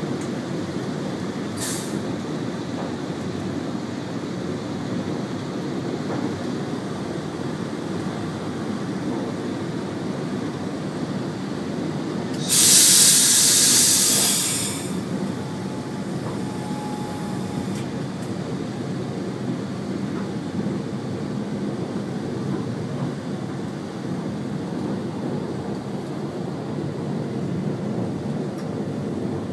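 Train running along the line, heard from inside the driver's cab: a steady rumble, with a loud hiss lasting about two seconds near the middle.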